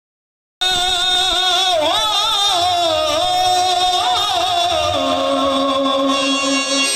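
Marathi jagaran gondhal devotional folk music starts about half a second in: a singer's wavering, ornamented melody with pitch glides, settling onto a long held note in the last two seconds.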